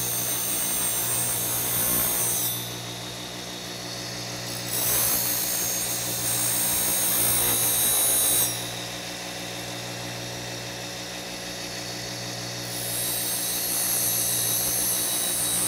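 Bench grinder running with a steady hum while a steel woodturning gouge is pressed to the wheel, grinding freehand to reduce its bevel. There are three grinding passes, each a few seconds of high hissing: one ending about two and a half seconds in, one from about five to eight and a half seconds, and one starting about thirteen seconds in.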